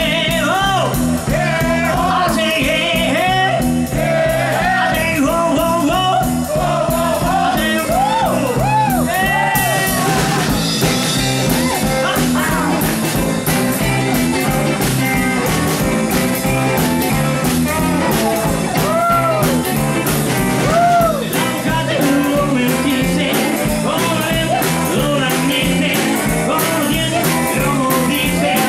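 Live rockabilly band playing a song: a sung lead vocal over electric guitar and drums, with a steady snare-and-cymbal beat.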